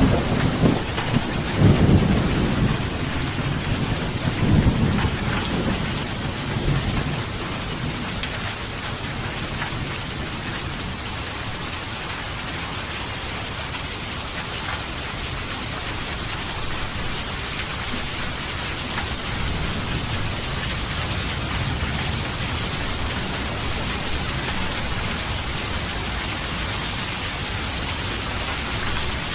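Steady rain with rolling thunder rumbling over it in the first several seconds, the rumble dying away to leave the rain alone.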